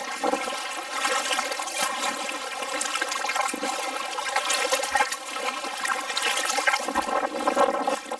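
Water rushing and splashing close against the hull of a plastic kayak as it is paddled along, with spray thrown onto the deck right by the microphone.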